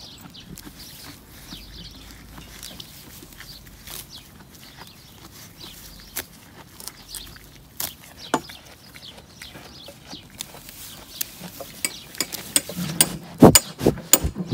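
Goats grazing close to the microphone: scattered crisp clicks and tearing of grass being cropped and chewed, with a cluster of loud knocks near the end.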